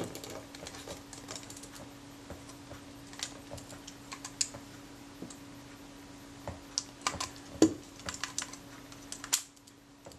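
Scattered small clicks and taps from hands handling the parts of a Kodak Retina IIIC camera body around its film advance and take-up spool, busiest in the second half, over a faint steady hum.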